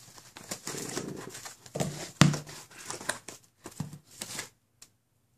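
Rustling and crinkling of packaging as bundles of wiring are handled and lifted out of foam packing, with a sharp knock about two seconds in.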